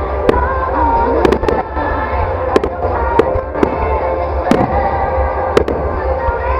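Fireworks shells bursting in a display: a dozen or so sharp bangs at irregular spacing, some in quick pairs, over a steady low rumble.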